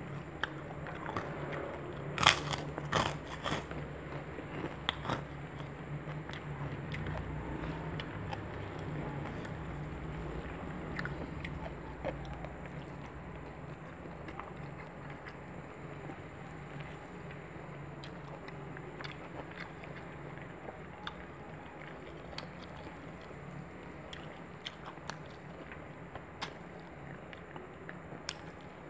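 Close-miked chewing and biting of food, with a few sharp crunches and clicks, loudest about two to three seconds in, then softer scattered chewing sounds.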